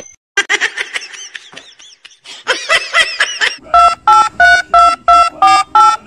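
Phone keypad tones: a run of short electronic beeps of slightly varying pitch, about three a second, starting a little past halfway. Before them, rapid high chirping squeaks that rise and fall in pitch.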